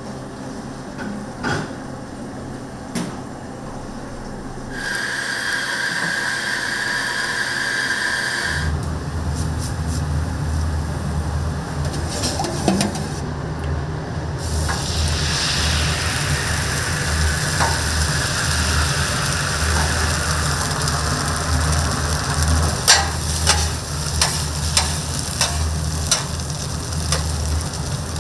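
Food sizzling as it fries, with a steady high tone from about 5 to 8.5 seconds in and a low hum that starts about 8.5 seconds in and keeps going. A few sharp clicks near the end.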